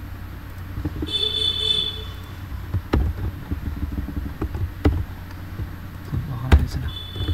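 Steady low hum with three or four sharp computer-mouse clicks spread through the middle, and a short high tone about a second in that comes back faintly near the end.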